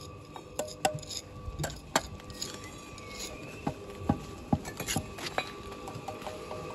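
Bricklaying: a steel trowel tapping and knocking on perforated clay bricks and scraping mortar, giving sharp metallic clinks at uneven intervals, about nine in all.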